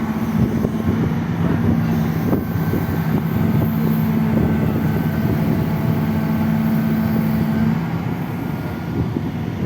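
Bulldozer's diesel engine running steadily, a dense low rumble with a steady hum over it. The hum breaks off briefly about two seconds in and stops near the end while the rumble goes on.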